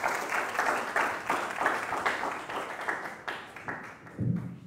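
Congregation applauding, a dense patter of many hands that dies away after about three and a half seconds.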